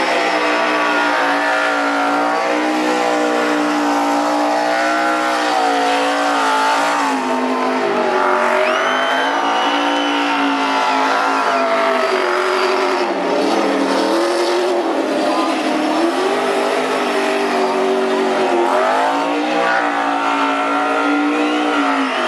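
NASCAR stock car's V8 engine revving hard through a burnout, its pitch rising and falling again and again as the rear tyres spin and squeal.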